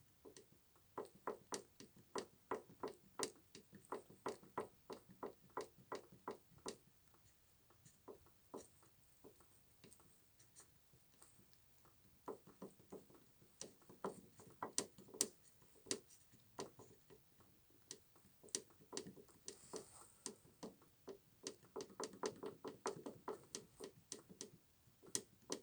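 Rear twist-beam bushing (silent block) of a Chery Tiggo 4 knocking in quick runs of sharp knocks, about two to three a second, with short pauses between runs. The owner takes it for the possible source of a knock from the rear over bumps.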